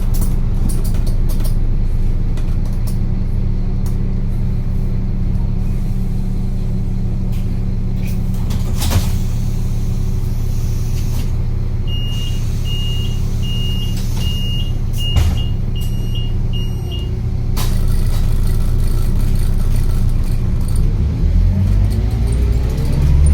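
A large vehicle's engine running steadily. Midway there is a series of about seven short, high beeps a little under a second apart, and two sharp knocks stand out, one before the beeps and one during them.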